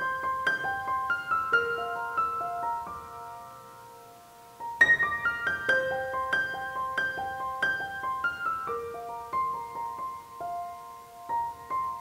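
Background music: a slow piano melody of single sustained notes that fades out around four seconds in and starts again about a second later.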